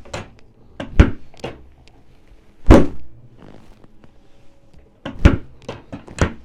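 Sharp thuds and cracks of a chiropractic low-back adjustment: one about a second in, a louder one near three seconds, and another past five seconds, followed by a few lighter clicks near the end.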